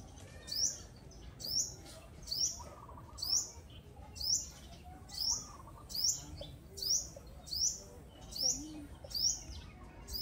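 A bird chirping over and over, one short high chirp about every second at a steady pace.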